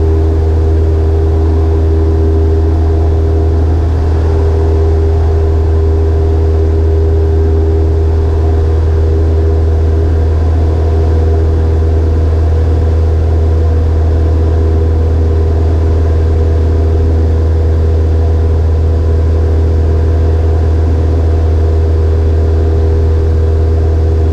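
Single-engine light aircraft's piston engine and propeller droning steadily in the cockpit during the climb after takeoff: a strong, unchanging low hum with a few steady higher tones over it.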